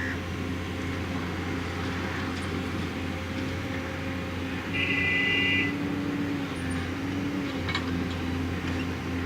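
JCB backhoe loader's diesel engine running steadily, with a brief high tone lasting about a second halfway through and a few faint clicks near the end.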